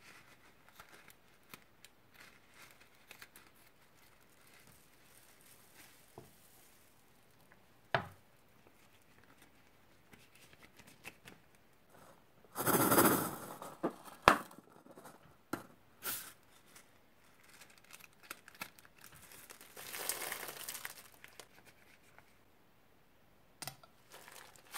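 Scissors snipping open a rubber balloon filled with foam beads, the balloon crinkling in the hands, and the small beads spilling out into a bowl of white foam. The loudest part is a short rush of spilling a little after halfway, with a few sharp clicks and a softer rush near the end.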